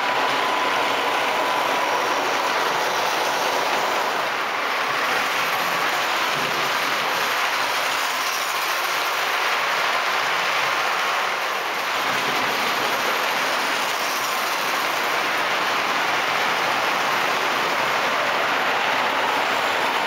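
O gauge model trains running on the layout's track: a steady rolling clatter of wheels over the rails as coaches and a goods train with tank wagons pass close by.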